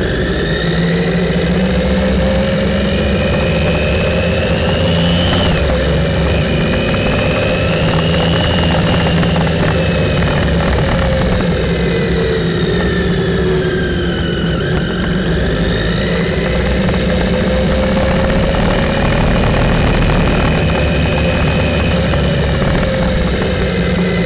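Motorcycle engine running while riding in traffic, its pitch rising and falling gently as the bike speeds up and eases off, over a steady rushing noise.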